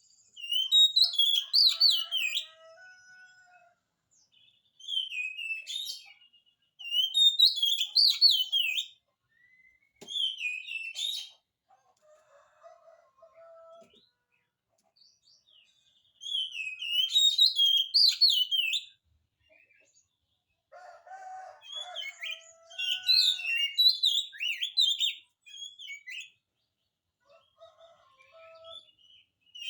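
Oriental magpie-robin (kacer) in full song: loud, rapid, twisting phrases of a couple of seconds each, repeated after short pauses, with quieter low notes in between.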